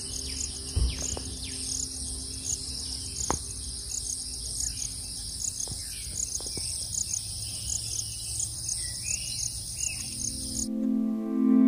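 A high-pitched, steady pulsing buzz of insects, with a few short bird chirps over it. Near the end it gives way abruptly to soft ambient music.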